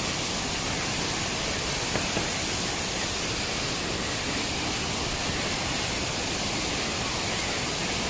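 Rushing water of a waterfall and its stream, a steady even hiss with no break.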